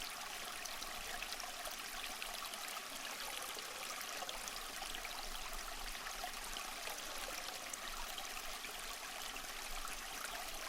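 Small stream flowing, a steady trickling and burbling of water over stones.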